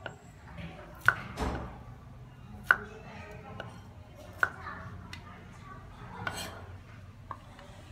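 Cleaver slicing baby corn on a round wooden chopping board: sharp, irregular knocks of the blade striking the wood, about one every second or two, with a couple of softer, longer scrapes in between.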